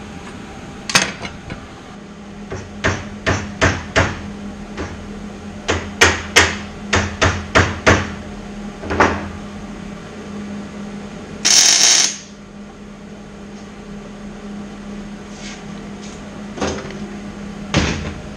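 A run of about a dozen sharp hammer taps on steel square tubing, knocking a frame tube into line. About eleven seconds in comes one MIG tack weld, a loud burst just under a second long. There is one more knock near the end.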